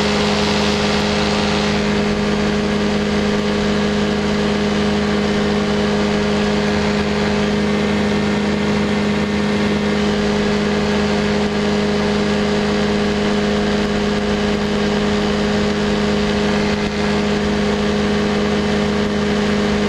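Light aircraft engine and propeller droning steadily in flight, an even hum with a hiss of passing air over it.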